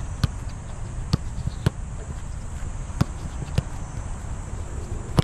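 Soccer balls being struck in shooting practice: several sharp, separate thuds of boot on ball and ball on ball, over steady low background noise.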